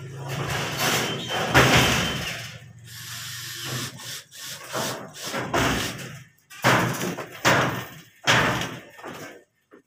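Cordless drill driving screws up through ceiling board into a light-steel frame in short, irregular bursts, mixed with knocks and thumps against the board.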